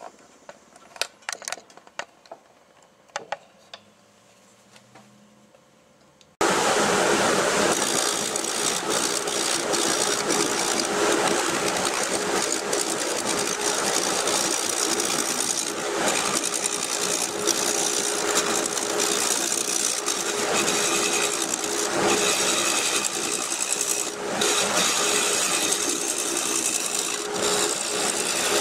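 Wood lathe running while a turning tool cuts into a hard oak blank: a steady motor hum under the dense hiss and scrape of the cut. It starts abruptly about six seconds in, after a few faint clicks and knocks.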